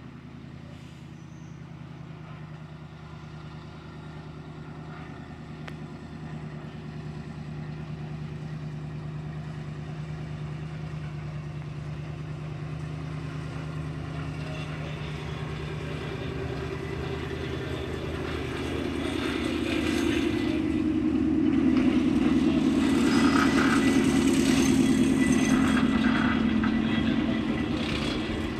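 1928 Plymouth gas locomotive running steadily as it hauls a passenger train closer, its engine drone growing louder, loudest about two-thirds of the way in and easing slightly near the end.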